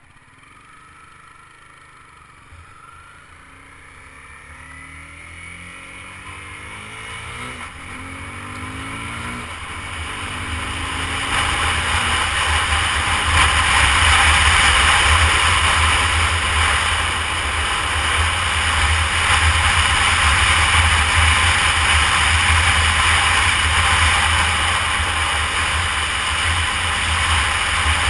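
Honda CBR250R's single-cylinder engine pulling away and accelerating through the gears, its pitch climbing and dropping at each upshift. From about ten seconds in, wind noise on the microphone builds with speed and becomes loud, drowning out the engine.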